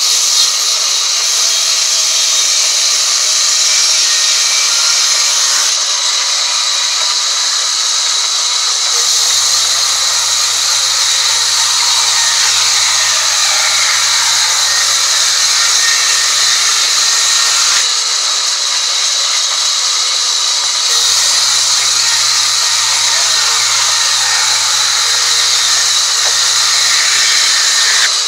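Large sawmill band saw running and ripping a timber beam lengthwise, a steady high hiss of the blade cutting through wood. A low hum joins twice, for several seconds each time.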